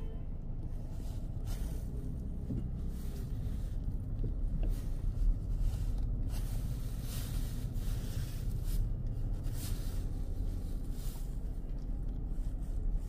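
A car on fire: a steady low rumble with scattered pops from the burning vehicle, and one sharper bang about five seconds in.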